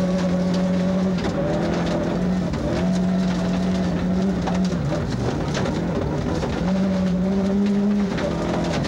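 Rally car engine heard from inside the cockpit, running hard. Its note steps up and down several times as the revs change, over constant road and mechanical noise with many short crackles.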